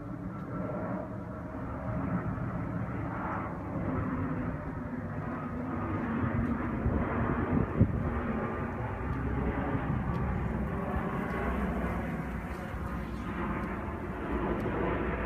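A steady low outdoor rumble of distant engine noise that builds slowly, with a single brief knock about eight seconds in.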